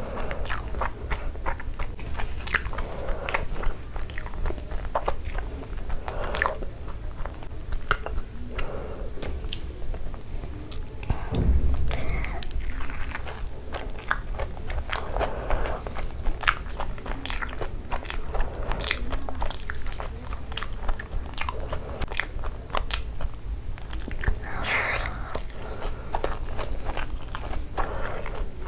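Close-up chewing and crunching of Cheetos-crumb-coated cheese balls, with irregular crisp crackles and wet mouth sounds. One dull low thump comes a little under halfway in.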